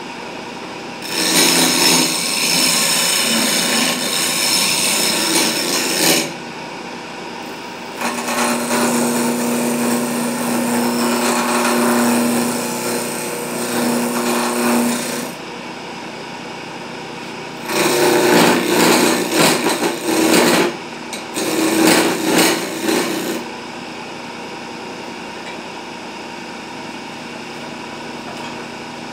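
Electric wood lathe motor running steadily. Over it come four long spells of loud rasping as a tool works the wood: about a second in, from eight to fifteen seconds, and twice between eighteen and twenty-three seconds.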